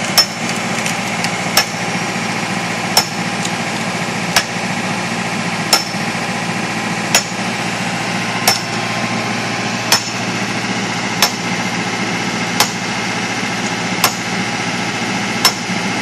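Backhoe loader's diesel engine idling steadily while a long-handled hand tool strikes a tree stump about every second and a half, twelve sharp blows in all, each with a brief ringing tone.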